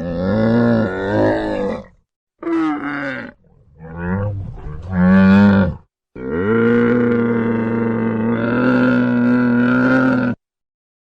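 An animal calling loudly: three calls of one to two seconds, then a long steady call of about four seconds, with abrupt silent gaps between them.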